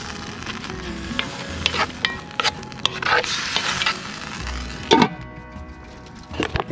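Food sizzling as it fries in a pan, with a metal utensil repeatedly clicking and scraping against the pan. About five seconds in there is a louder knock and the sizzling drops away.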